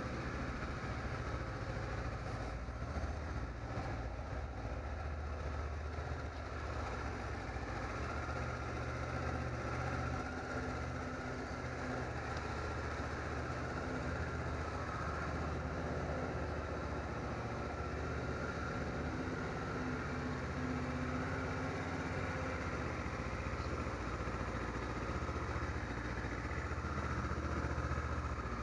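Stock Kawasaki Ninja 650R's parallel-twin engine idling steadily.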